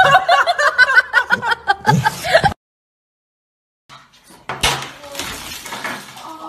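A person laughing in quick, repeated ha-ha-ha pulses for about two and a half seconds, which cuts off into a second of silence. About four and a half seconds in there is a single sharp knock or slap, followed by quieter rustling.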